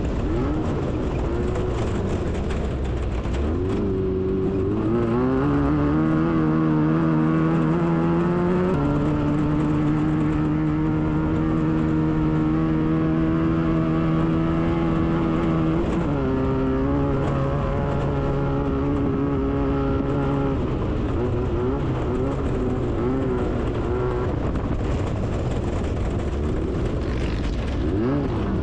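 Class 9 VW desert race buggy's air-cooled Volkswagen flat-four engine running hard. The revs climb about four to eight seconds in, hold steady for several seconds, drop suddenly about sixteen seconds in, then rise and fall with the throttle.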